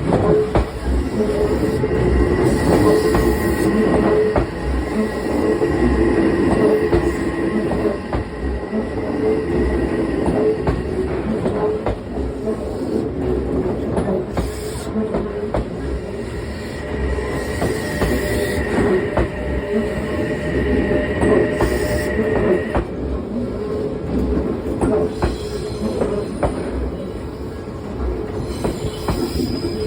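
Odakyu Line electric commuter trains running through a level crossing, wheels clattering over the rail joints and squealing, with a high steady squeal that cuts off about two-thirds of the way through. Under it the closed crossing's warning alarm rings on, a repeating pulsed ding.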